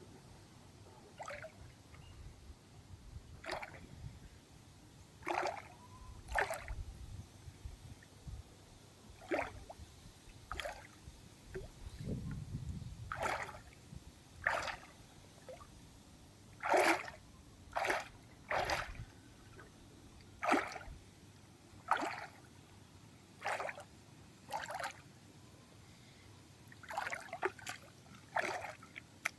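Water splashing and sloshing in short separate bursts, roughly one every second or so.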